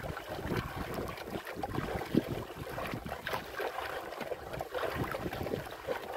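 Sea water splashing and sloshing irregularly against the hull of a small wooden outrigger boat, with wind on the microphone. A sharper splash or knock stands out about two seconds in.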